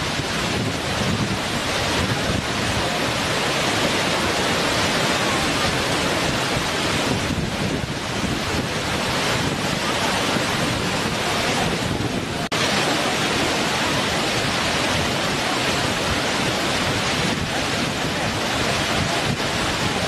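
Waterfall: a steady rush of water cascading over rock, with a brief dip about twelve seconds in.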